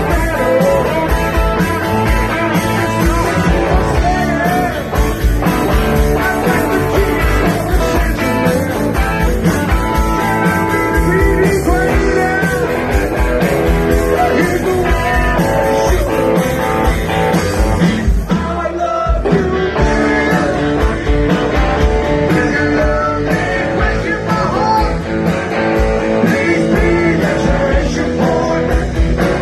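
Live rock band playing an upbeat rock-and-roll song, with guitar, drums and lead singing.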